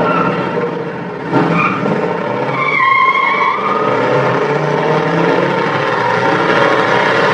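Muscle car's V8 engine held at high revs during a burnout, with the rear tyres spinning and squealing. The engine jumps louder about a second in, and the tyre squeal rises and falls briefly around the second and third seconds.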